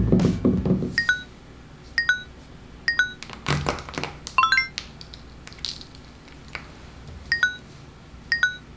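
A run of short electronic blips, each a quick downward-stepping chirp, coming roughly once a second, with a quicker flurry about four and a half seconds in. A few dull thuds sound between them.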